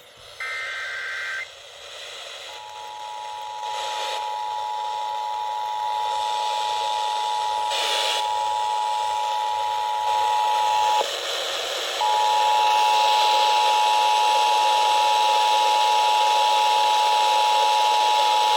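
Emergency Alert System test received over FM radio. A short warbling data burst comes first, then the two-tone EAS attention signal sounds steadily for about eight seconds, cuts off, and starts again a second later. Radio hiss lies underneath throughout.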